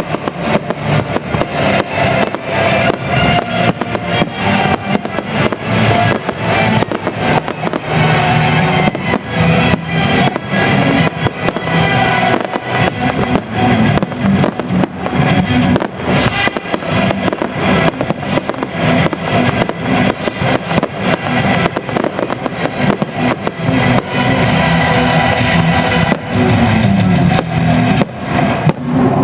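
Fireworks display shells bursting in quick succession, a steady run of bangs and crackles over loud music playing.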